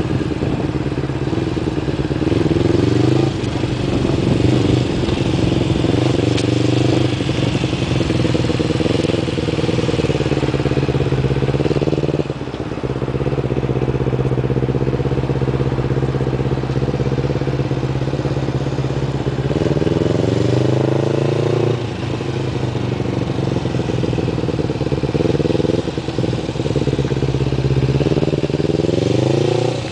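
Motorcycle engine, the 2005 Kawasaki Ninja 250's parallel twin, running at low speed and rising in pitch several times as the throttle is opened through the curves, then settling back to a steady note.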